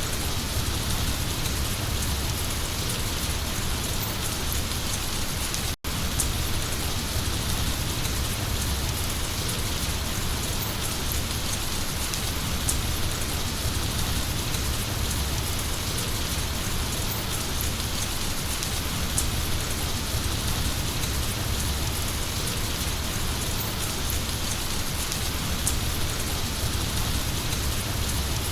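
Heavy rain falling steadily, an even hiss of rain on surfaces with a low rumble underneath. The sound cuts out for an instant about six seconds in.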